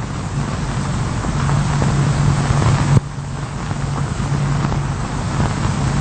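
Steady low hum under an even hiss, with a sudden drop in level about halfway through, like a cut in the soundtrack.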